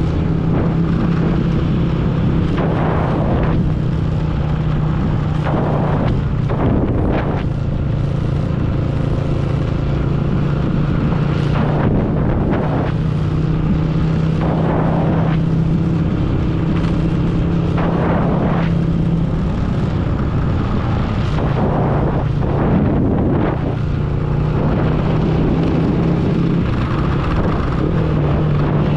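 Motorbike riding at a steady pace: the engine runs with an even hum that shifts a little in pitch a few times, under heavy wind buffeting on the microphone.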